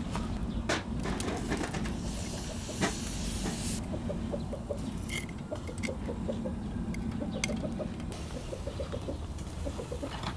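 Metal tongs clicking and tapping against a wire grill grate as pieces of pork intestine are laid on over charcoal, a few sharp clicks spread through. Behind it, a bird's short calls repeat evenly through the second half.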